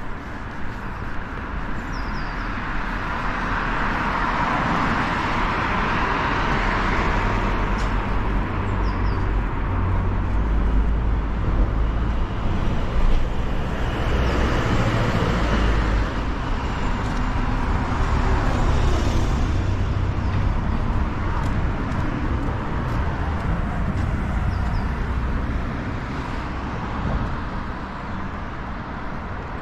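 Road traffic going by on a city street: the noise of vehicles swells and fades twice, with a heavy low engine rumble through the middle.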